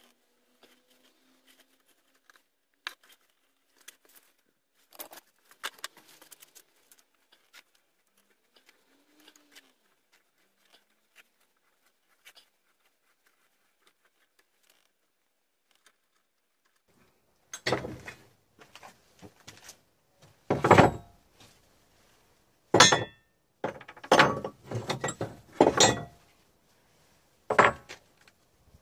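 Metal parts being handled by hand: faint scattered clicks and taps, then, from just past halfway, about seven louder clanks and thunks as pieces are knocked and set down on the bench.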